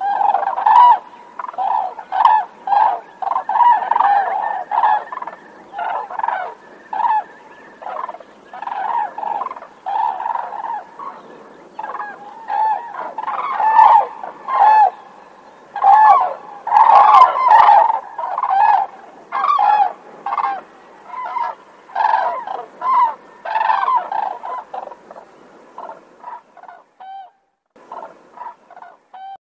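Red-crowned cranes calling: a long run of loud, short, pitched calls, one to two a second and often overlapping, growing sparser and fainter near the end.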